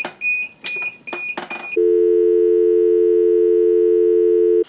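Short high electronic beeps, about two a second: a low-power alarm as the solar-charged battery supply fails. About two seconds in it gives way abruptly to a loud steady low tone, like a dial tone, that lasts about three seconds and cuts off suddenly.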